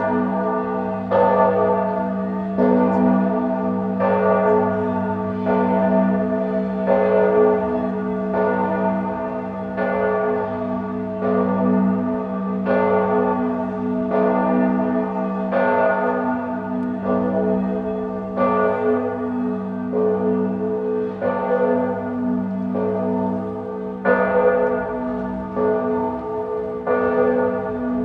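Church bells ringing, a new stroke about every second and a half, each one ringing on and overlapping the next.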